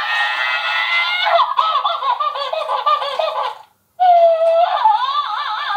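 Plush monkey toy's built-in sound chip playing a wavering animal cry through its small speaker, the pitch wobbling up and down. It comes in two stretches, with a brief break just before four seconds in.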